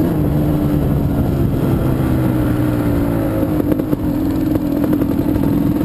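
Quad ATV engine running steadily while riding along a dirt road, with a brief dip in loudness about four seconds in.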